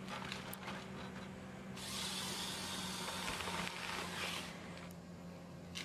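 John Deere 1270G forestry harvester at work: a steady low engine drone, with a loud hissing rush for about two and a half seconds in the middle.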